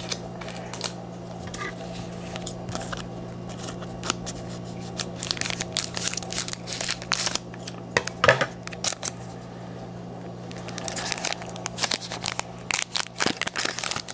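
Plastic wrapper of a trading-card pack crinkling in irregular clusters as it is handled and torn open, with one sharper crack about eight seconds in.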